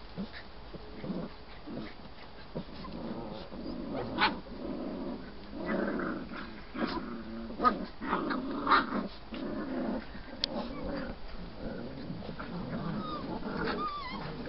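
Polish Tatra Sheepdog puppy growling in play, a string of short low growls with a few sharper, higher sounds among them, starting a few seconds in.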